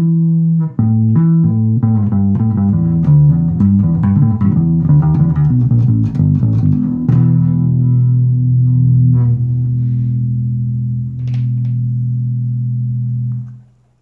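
1989 Rickenbacker 2050 El Dorado electric bass with flatwound strings, toggle switch in the middle and all knobs up full, being played: a quick run of plucked notes for about seven seconds, then a held note left ringing, plucked again about eleven seconds in, dying away and cut off near the end.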